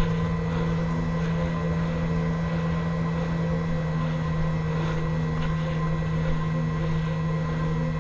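Ambient background music: a steady low drone with a few higher sustained tones held over it.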